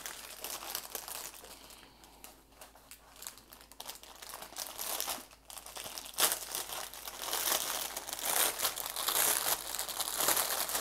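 Clear plastic bag of diamond painting drill packets crinkling as it is handled. The crinkling is softer at first and grows louder and denser from about halfway through, starting with a sharp crackle.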